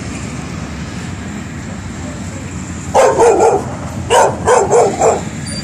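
White boxer dog barking: a few quick barks about three seconds in, then another, longer run of rapid barks about a second later.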